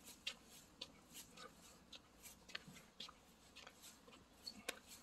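Footsteps on a dirt path: soft, crisp scuffing steps, about two a second.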